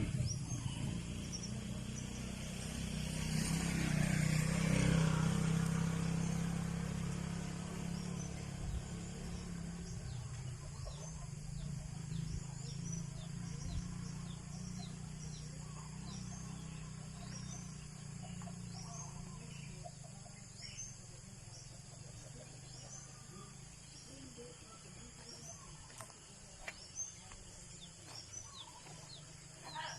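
Rural outdoor ambience: small birds chirping again and again in short high notes, over a low rumble that swells a few seconds in and slowly dies away.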